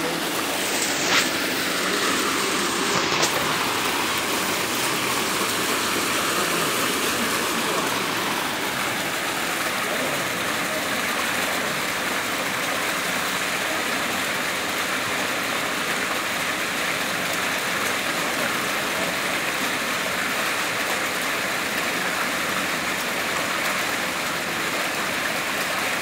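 A row of geyser jet fountain nozzles gushing foamy white columns of water that splash back into a shallow channel, making a steady loud rush, with a water curtain falling alongside. Two brief sharp clicks sound in the first few seconds.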